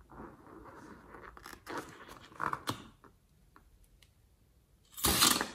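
Rubbery rustling and squeaking as a filled balloon is handled, then near the end a loud, brief snip as scissors cut off the balloon's tip.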